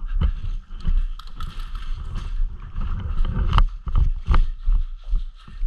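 Footsteps crunching on wood-chip mulch and gravel, an irregular run of thumps and crunches, a few of them sharper and louder in the second half.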